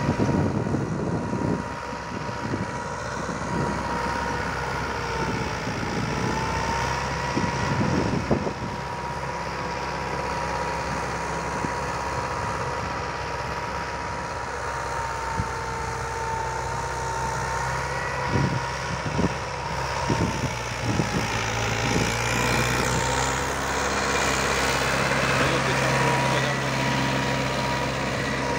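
Mahindra 575 XP Plus tractor's four-cylinder diesel engine running steadily under load while pulling a nine-tine cultivator, at an estimated 1500 RPM. A few short knocks sound over the drone, which grows louder in the last few seconds.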